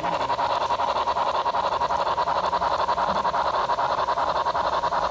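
Sound-equipped HO scale model steam locomotive chuffing steadily, a rapid, even beat of exhaust chuffs.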